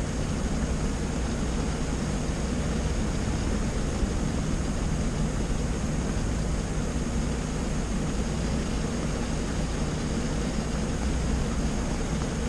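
Rain falling steadily on a stationary car's windshield and roof, heard from inside the cabin as an even hiss over a low steady hum.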